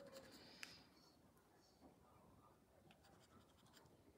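Faint scratching as a lottery scratch card's coating is rubbed off, with a small sharp tick just over half a second in.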